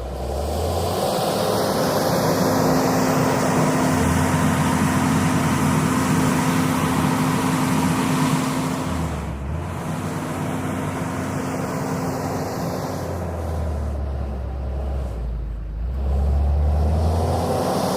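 JCB 426ZX wheel loader's diesel engine working under load, revving up and easing off several times, with a whine that rises and falls above the engine note.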